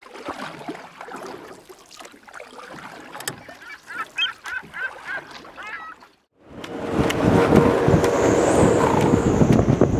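Storm wind buffeting the microphone, with water noise, loud and gusty from about six and a half seconds in after a brief silence. Before it come quieter mixed sounds with a string of short repeated calls.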